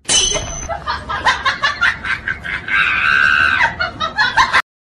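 Loud added laughter sound effect: rapid bursts of laughing with a high drawn-out shriek about three seconds in, cutting off abruptly near the end.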